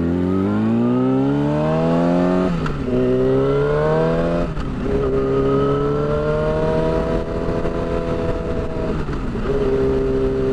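Yamaha R6's inline-four engine, with a shorty exhaust, accelerating through the gears. The engine note climbs, drops at an upshift about two and a half seconds in, climbs again and drops at a second upshift, then holds a fairly steady note with a brief dip near the end.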